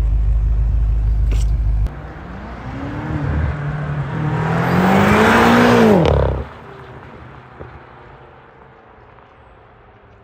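BMW M5 F10's twin-turbo V8 revving up and easing off as the car drives by, with a rush of tyre and air noise that builds to a peak about six seconds in and then cuts off abruptly. A loud low rumble fills the first two seconds.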